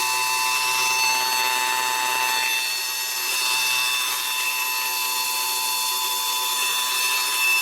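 Small cordless handheld vacuum cleaner running: a steady, high-pitched motor whine over a rush of air.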